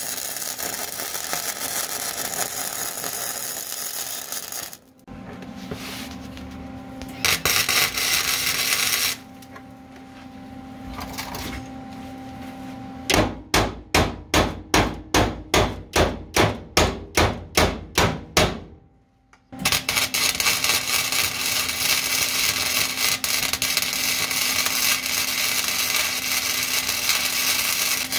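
Arc welding on a car's subframe connectors: long runs of steady arc noise, with a shorter burst partway through. In the middle comes a run of about a dozen sharp, evenly spaced strikes, a little over two a second.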